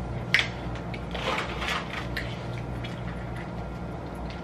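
Boiled crawfish being snapped and peeled by hand: a sharp crack about a third of a second in, then about a second of crackling and a few small clicks of shell. A steady low hum runs underneath.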